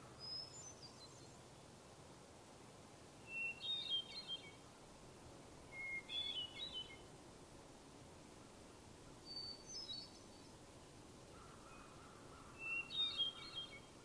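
Hermit thrush singing five separate phrases a few seconds apart. Each phrase is a clear opening note followed by a quick cluster of higher notes, and each is pitched differently from the one before, some high and some low.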